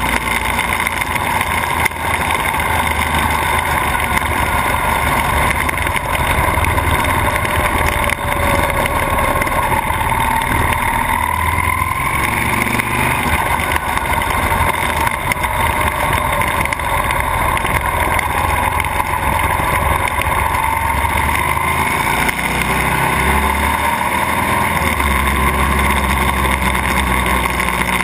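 Buell XB12S's V-twin engine running at road speed under a steady rush of wind and road noise, its pitch rising and falling gently a few times with the throttle.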